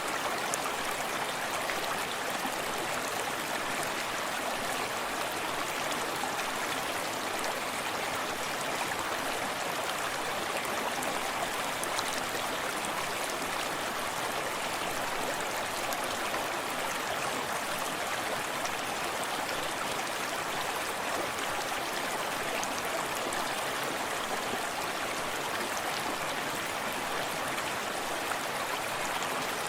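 Small forest stream running steadily, with gentle splashing and gurgling water.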